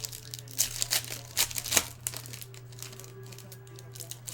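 Trading cards and foil pack wrappers being handled: a run of crinkles and rustles in the first two seconds, lighter shuffling after, over a steady low hum.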